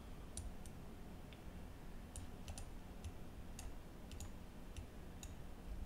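Faint computer mouse clicks: about a dozen short, sharp ticks scattered irregularly, some in quick pairs, over a low steady hum.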